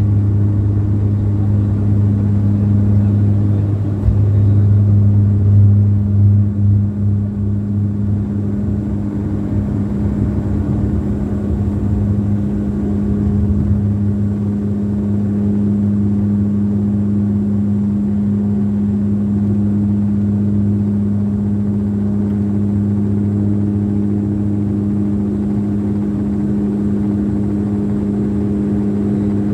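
Turboprop airliner's engine and propeller at takeoff power, heard from the cabin beside the propeller: a loud, steady drone with low humming tones. It is rough and uneven through the first several seconds, with a brief jolt about four seconds in, then runs smooth and even through the climb.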